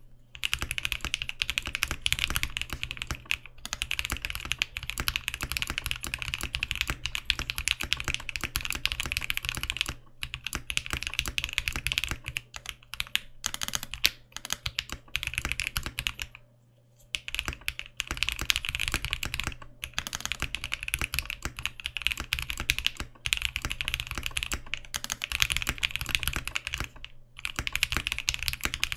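Continuous typing on a clear TKC Portico mechanical keyboard with lubed C³×TKC Tangerine linear switches (62 g springs, UHMWPE housings, POM stems): dense runs of rapid keystrokes, broken by brief pauses a few times.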